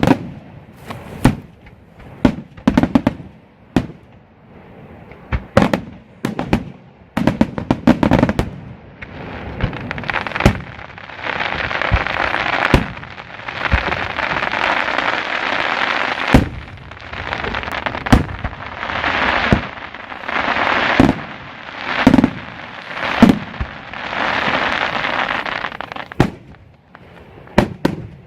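Aerial firework shells going off: a quick run of sharp bangs, then from about nine seconds a sustained hissing rush that swells and fades several times, broken by more bangs, before it drops back to scattered reports near the end.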